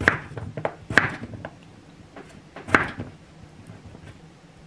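Kitchen knife slicing through a raw potato and knocking down onto a cutting board. There are three sharp chops, the first two about a second apart and the third nearly two seconds later, with lighter taps between.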